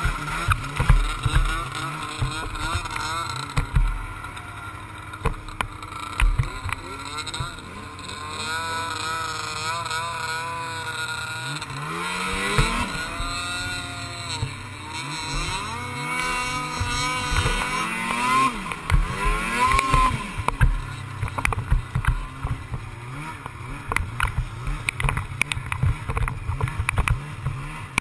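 Snowmobile engine running at varying throttle, its pitch rising and falling again and again, with many short knocks and thumps as the sled jolts over the snow.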